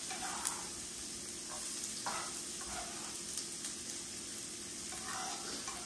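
Chopped shallots and garlic sizzling steadily in hot olive oil in a frying pan, with a few soft stirring sounds and a light click about half a second in.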